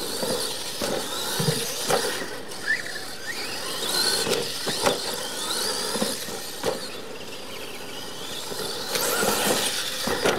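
Radio-controlled monster trucks racing on dirt: their electric motors whine, rising and falling in pitch as they speed up and slow down, with a few sharp knocks as the trucks land off the jumps.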